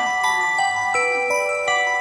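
Background music: a bell-like melody of clear, ringing notes, a new note about three times a second.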